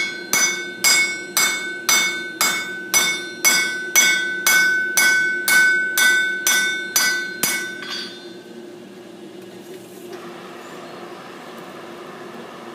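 Blacksmith's hammer striking iron on an anvil, about two blows a second, each blow ringing. The hammering stops about eight seconds in, leaving a steady rushing hiss of air, the blast of the coal forge fire.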